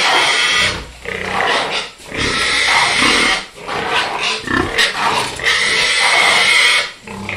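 Domestic pigs squealing loudly: a run of long, harsh squeals, each about a second, with short breaks between them.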